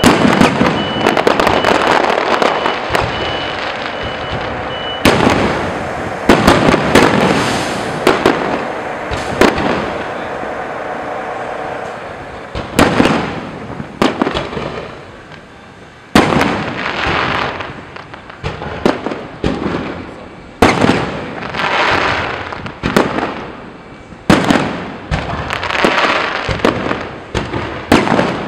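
Aerial fireworks shells bursting overhead, a sharp bang every second or so, each followed by a trailing rumble and crackle. A faint steady high tone sounds for the first five seconds.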